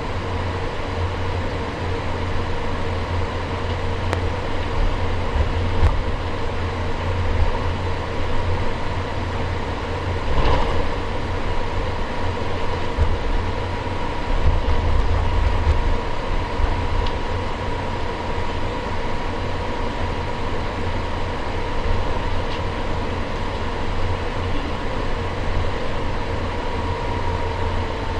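Cabin sound of an Airbus A350-900 rolling on the ground: its Rolls-Royce Trent XWB engines hum steadily at low power over a low, uneven rumble from the wheels. There is a single bump about ten seconds in.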